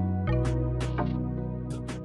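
Instrumental background music: held bass notes and chords with light percussion hits keeping a beat.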